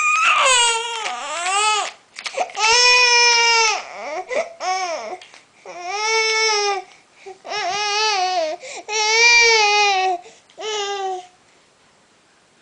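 A baby crying in a run of about six drawn-out wails, each around a second long with short breaths between. The cries stop a little before the end.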